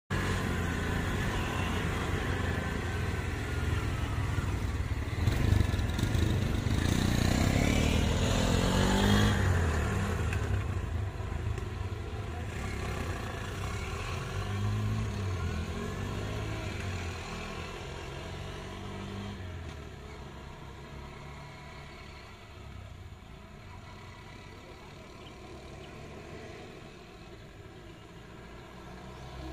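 Motor vehicle engines running on the road, loudest in the first ten seconds with rising and falling pitch as vehicles rev and pass, then fading to a quieter hum.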